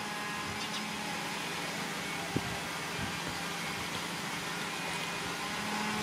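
Steady background hum and hiss of a running machine, with a single sharp click a little over two seconds in.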